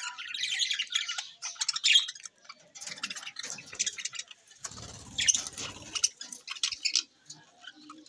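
A flock of budgerigars chattering and warbling, in rapid, scratchy bouts of overlapping calls that come and go every second or two. A brief low rumble sits under the calls about five seconds in.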